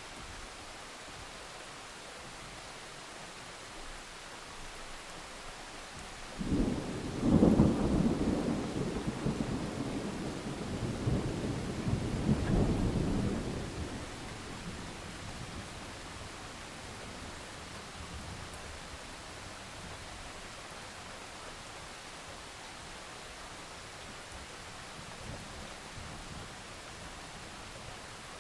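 Steady rain falling, with a roll of thunder that breaks in suddenly about six seconds in, rumbles loudest for a couple of seconds, swells again and dies away after about seven seconds.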